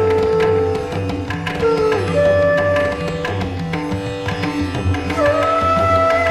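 Instrumental background music in an Indian classical style: plucked strings over a steady hand-drum rhythm, with long held melody notes that slide up into pitch.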